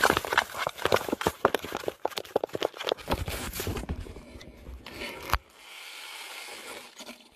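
Handling noise: rapid scraping and crackling as a tube held over the camera rubs against it, then a single sharp knock about five seconds in, followed by a soft steady hiss.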